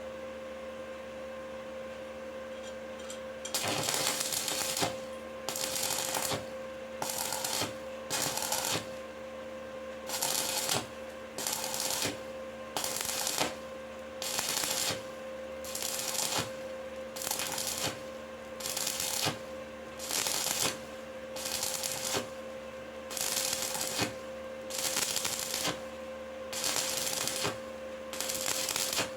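Stick-welding arc crackling in short bursts, struck and broken again about every second and a half while an electrode is laid into a pipe weld step by step, starting a few seconds in. A steady electrical hum underneath.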